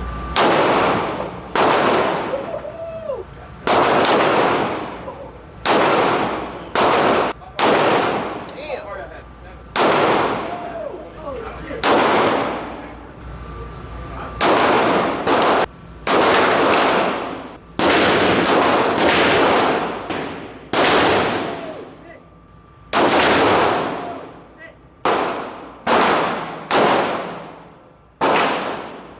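Gunshots at a shooting range: about twenty single shots at irregular intervals, some in quick pairs or runs less than a second apart, each with a reverberant tail that dies away.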